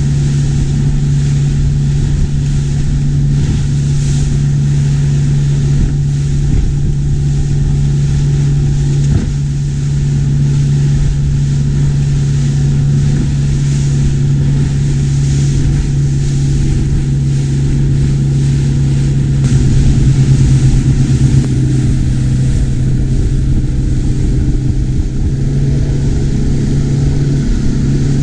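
Outboard motor running steadily as the boat cruises, a constant low drone over the rush of water and wind. The engine note swells a little louder for a couple of seconds about two-thirds of the way through.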